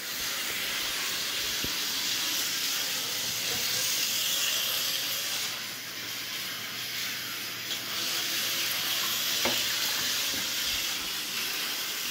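Tyco US1 electric slot trucks running around the plastic track, their small motors and gears making a steady hissing whir that dips a little midway, with a couple of faint clicks.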